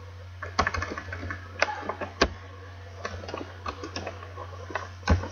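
Computer keyboard typing: irregular clicking keystrokes, some louder than others, over a steady low hum.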